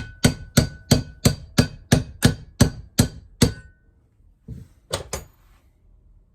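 Hammer blows on metal while a part is driven into a bench vise: about eleven even strikes, roughly three a second, with a faint ring, then a pause and two more strikes. A tool other than a proper hammer is being used as the hammer.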